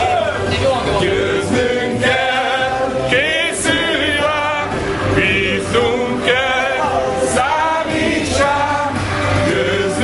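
Male singing voices with musical backing, a song sung steadily throughout.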